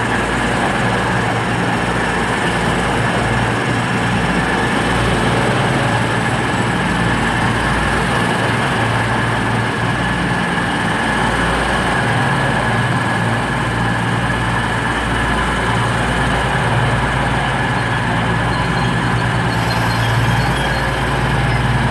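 East Midlands Trains Class 222 Meridian diesel-electric unit coming into the platform, its underfloor diesel engines running with a steady low hum.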